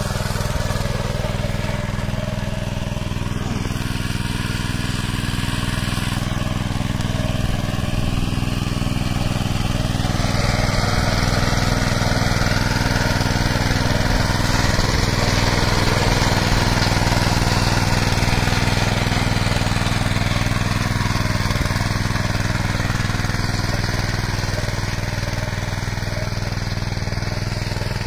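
Kisan Kraft 200P petrol power tiller's small engine running steadily under load as its rotary tines dig through soil.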